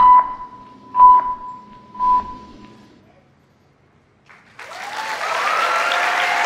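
Three short beeps of a radio time signal, one a second, then a moment of silence before an audience breaks into applause and cheers about four and a half seconds in.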